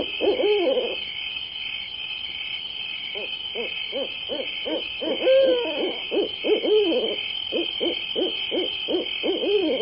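An owl hooting in runs of short hoots, with a pause about a second in, then quick series of hoots and a few longer calls to the end. A steady, pulsing high-pitched sound runs behind it.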